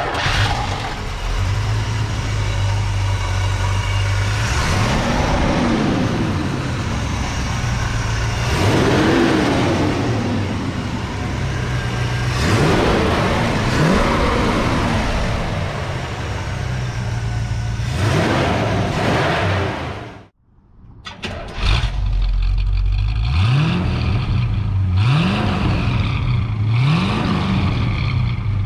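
A 350 cubic-inch V8 in a 1958 Chevrolet Apache pickup idles steadily and is revved with about eight quick throttle blips, each rising and falling back to idle. The sound drops out abruptly for about a second around twenty seconds in, then resumes with more blips.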